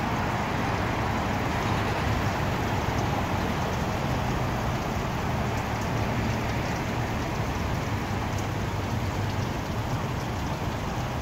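Steady street noise: a constant rushing hiss over a low rumble, with no distinct events.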